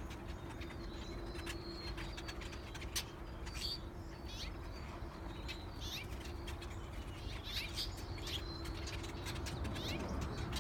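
A crowd of small birds chirping in many short, scattered calls, agitated at being forced together after losing their nesting tree. A steady low hum runs underneath.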